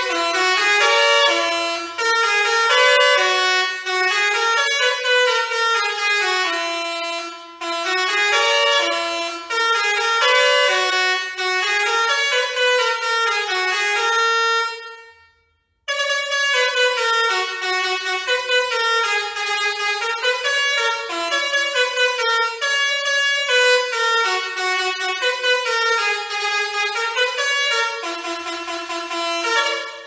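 Basuri 5.0 musical air horn, six trumpets, playing a melody note by note. About halfway it stops for a moment and starts a new tune, which cuts off at the end.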